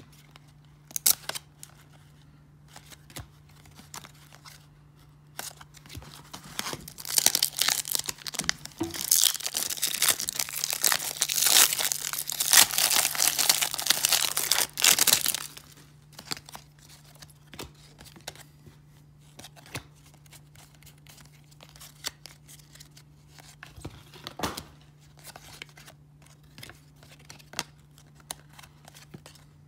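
A trading-card wax pack wrapper being torn open and crinkled, a loud crackling stretch that starts about six seconds in and lasts about nine seconds. Before and after it, light flicks and clicks of cardboard baseball cards being thumbed through in the hand, over a faint steady low hum.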